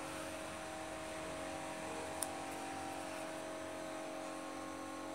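Steady background hum and hiss of a small room, with a single faint click about two seconds in.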